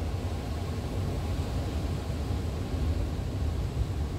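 Steady low rumble of wind on the microphone mixed with ocean surf, with no distinct events.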